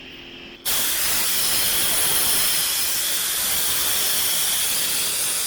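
Oxy-acetylene torch hissing loudly and steadily. It starts abruptly just under a second in.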